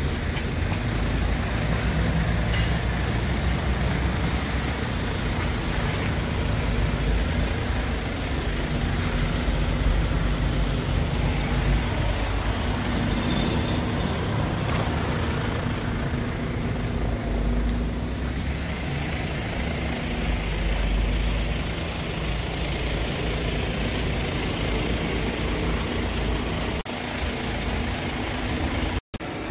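Scania R450 truck's 13-litre inline-six diesel idling steadily, with a brief dropout near the end.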